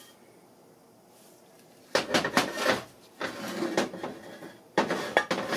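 Briggs & Stratton engine block being handled and set down on a metal workbench: quiet at first, then from about two seconds in three bursts of metal clunks, knocks and scraping.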